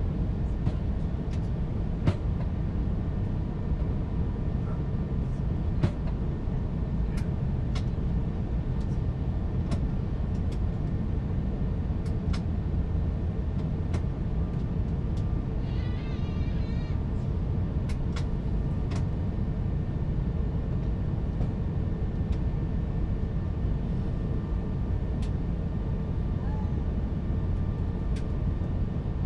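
Steady roar inside the cabin of an Airbus A350 in flight: engine and airflow noise, strongest low down, with scattered faint clicks and rattles.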